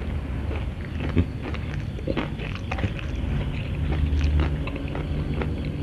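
Crunchy, flaky fried chicken crust crackling in many small sharp bits as fingers pick it apart and it is chewed. A low steady hum runs underneath, stronger from about halfway.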